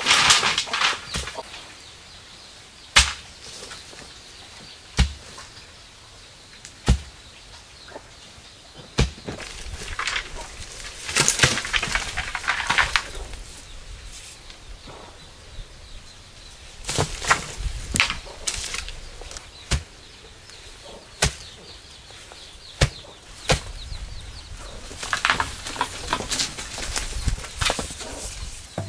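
Bamboo poles being handled and set into a fence: hollow knocks, several of them about two seconds apart, with bursts of clattering and rustling.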